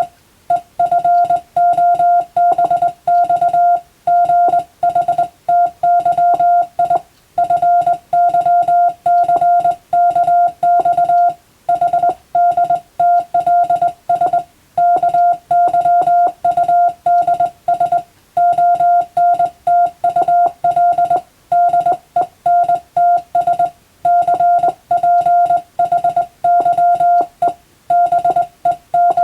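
Morse code (CW) practice tone, one steady mid-pitched beep keyed on and off in dots and dashes. It spells out letter groups of a practice telegram text at a steady sending speed, with short breaks between characters and words.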